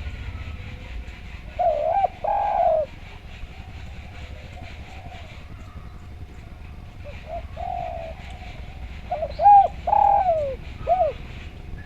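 Spotted dove (derkuku) cooing: two calling phrases of short falling coos, the first about a second and a half in and the second starting softly about seven seconds in and loudest near the end.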